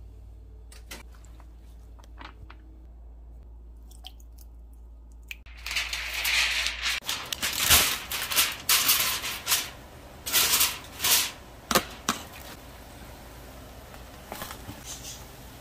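Aluminium foil crinkling and rustling in a run of loud crackly bursts from about six seconds in to about twelve, after a few faint clicks, as a foil tray of rice and its foil cover are handled.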